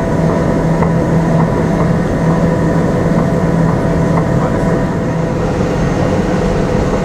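Gornergrat Railway's electric rack train running, heard from inside the car: steady rolling noise under a constant low hum, with a few faint ticks.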